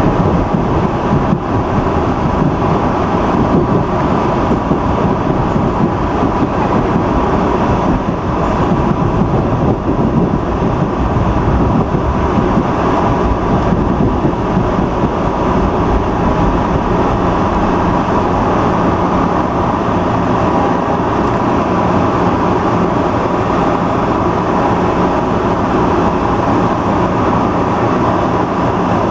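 Steady running rumble of an MBTA Red Line 01800-series subway train, heard from the front cab. A low steady hum joins about halfway through and continues.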